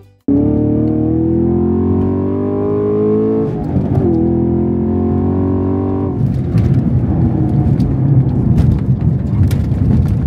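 Camaro SS 1LE's 6.2-litre naturally aspirated V8 pulling hard, its pitch rising steadily, with a brief dip about four seconds in. About six seconds in the engine note drops away into a rough rumble with scattered knocks as the car runs off the track onto the grass, after the brake pedal went hard with little stopping power, which the driver blames on the car's "ice mode".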